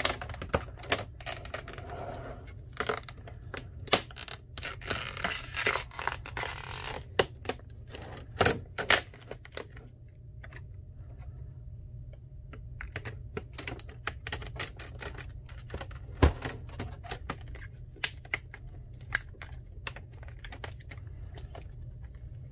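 Plastic of a laptop's screen assembly being pried apart by hand: a long series of sharp clicks and snaps, with a stretch of scraping a few seconds in.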